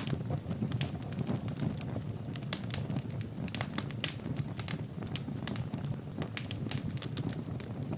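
Fire burning in a fireplace, crackling steadily: many sharp pops and snaps, several a second, over a low rumble of the flames.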